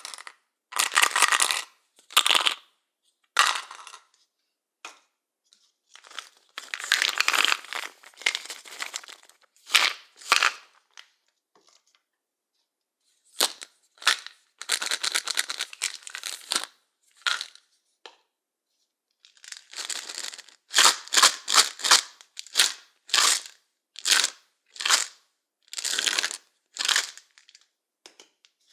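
Pills rattling inside plastic pill bottles, shaken in repeated bursts with short pauses between. Some shakes last a second or two, and a run of quick short shakes comes about two-thirds of the way in.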